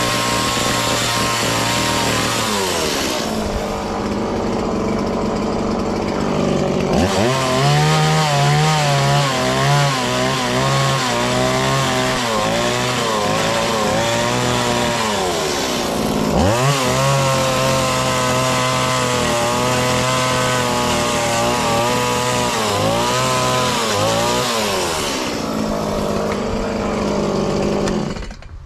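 Two-stroke chainsaw cutting into a wood slab, its engine note wavering under load. It drops to idle about three seconds in, revs up and cuts again, dips briefly midway, cuts once more, then idles and stops near the end.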